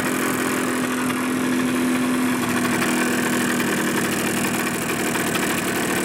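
Suzuki GP100's single-cylinder two-stroke disc-valve engine running steadily on a test stand, rattling like a bag of hammers. This is piston slap: with the engine hot, the clearances of the worn piston and cylinder have opened up, and they need a rebore and a new piston.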